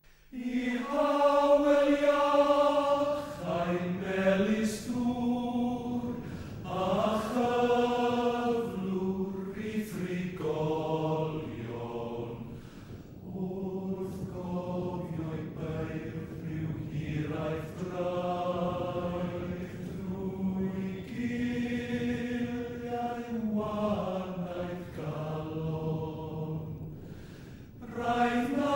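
Unaccompanied singing voice holding long notes in a slow, stepwise melody, like a chant; it begins suddenly out of silence and is loudest in the first few seconds.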